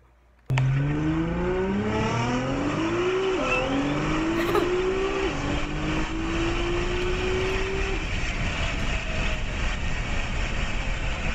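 Sports car engine under hard acceleration from a launch, starting suddenly about half a second in. Its pitch climbs, drops back at two gear changes about 3 and 5 seconds in, and climbs again, then gives way to a steady rush of engine and road noise.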